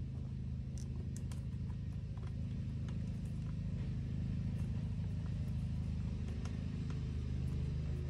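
Lawn mower engine running with a steady low drone, with a few faint light clicks of a small wrench on a wheel nut.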